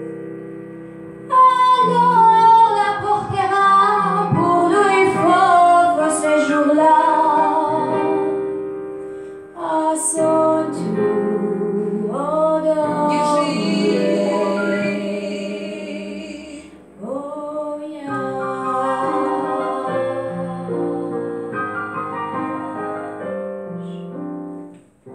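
A woman singing the final phrases of a song into a microphone, accompanied on a digital piano. The piano sounds alone at first and the voice comes in about a second in, with two short breaths between phrases.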